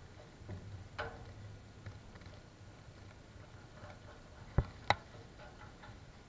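Light metal clicks and taps from handling the replacement upper windshield channel along the top of a 1955 Ford F100's windshield opening: a faint click about a second in, then two sharp taps about a third of a second apart about two-thirds of the way through.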